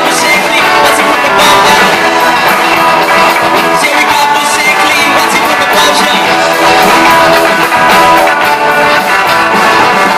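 Live rock band playing loud and without a break: electric guitars over a drum kit, with a steady beat.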